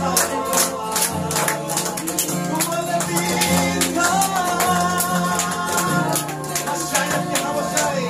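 Congregation singing a Tagalog praise song over a music accompaniment with a steady bass line, with hand claps in a regular rhythm on the beat.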